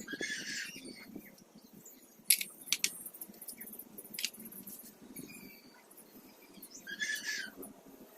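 A few sharp clicks, three of them close together a couple of seconds in, and two short high chirping calls, one at the start and one near the end, over a faint low background.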